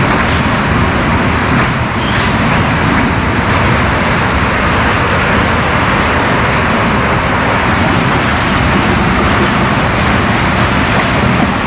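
Water rushing steadily through a beaver-plugged culvert as the blockage is opened up, a continuous loud rush that sounds like a waterfall.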